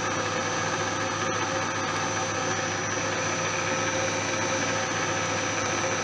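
Vertical milling machine's electric motor running steadily on its variable frequency drive, an even hum with a high whine. It keeps running because the drive is stuck on and won't shut it off.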